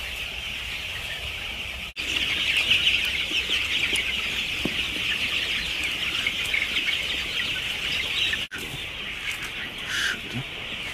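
Dense cheeping of a large flock of young chickens, many high peeps overlapping into a constant chatter. It cuts off sharply and comes back louder about two seconds in, and breaks off again near the end.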